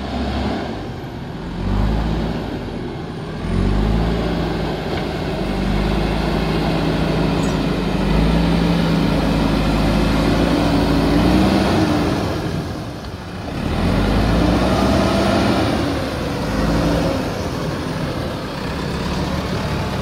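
JCB backhoe loader's diesel engine running as it drives, its pitch rising and falling several times as it revs up and eases off, with a brief drop in level about two-thirds of the way through.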